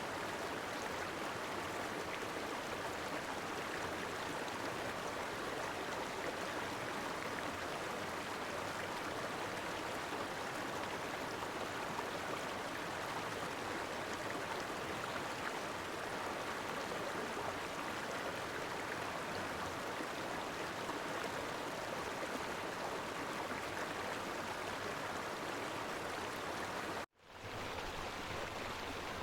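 Steady rush of water from stream cascades and waterfalls, an even hiss with no let-up. It cuts out for an instant near the end, then resumes.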